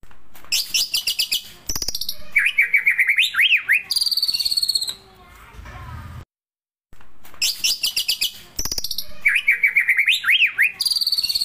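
White-rumped shama (murai batu) song, looped as a pancingan lure: a phrase of very fast high trills, then rapid chattering notes with quick up-and-down sweeps, then a falling trill. The same phrase plays twice, with a short silent break between.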